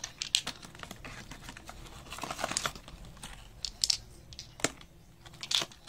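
Small nail polish bottles clicking against each other as they are handled, with rustling and crinkling of clear plastic packaging.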